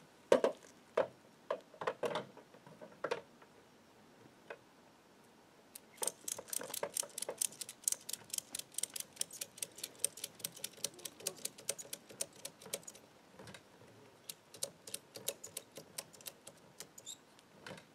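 A hand-tensioned ratchet tie-down strap is being tightened. A few knocks come as the buckle is handled, then about six seconds in the ratchet starts clicking rapidly. The clicking pauses briefly near the end and then resumes.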